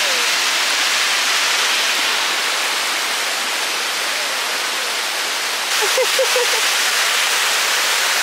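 Steady rushing of falling water from the Tumpak Sewu cascades, a continuous hiss-like roar with no breaks, growing slightly louder near the six-second mark.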